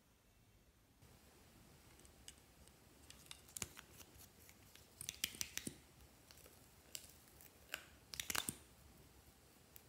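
Scattered light clicks and taps of small squeeze bottles and their plastic caps being handled and opened, in short clusters.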